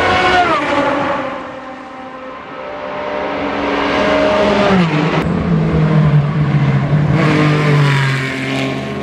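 Ford 3.7-litre V6 engines of Ligier JS P4 race prototypes at speed. One car's note falls away near the start, then another car's note climbs to a high pitch, drops sharply about halfway through and runs on at a lower steady pitch.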